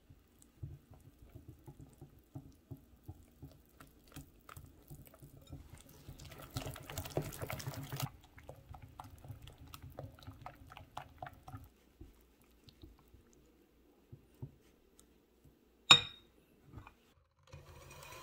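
Wire balloon whisk stirring flour into a thick yogurt batter in a glass bowl: quick taps and scrapes of the wires on the glass, busiest about halfway through, then thinning to scattered clicks. A single sharp knock about two seconds before the end, then an electric hand mixer starts running in egg whites.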